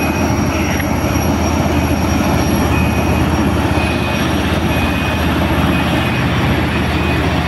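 LeTourneau L-1850 wheel loader's diesel engine running loud and steady, with most of its sound deep and low, as it holds a loaded bucket up over a haul truck. A faint high beep repeats every second or so beneath it from a few seconds in.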